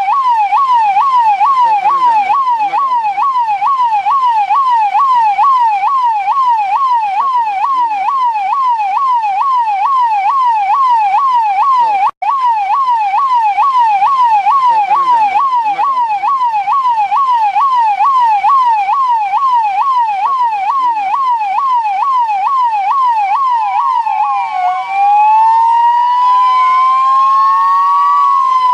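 Electronic police siren in a rapid yelp, its pitch sweeping up and down several times a second, with a brief cut-out about twelve seconds in. Near the end it changes to a slower wail, with two siren tones overlapping.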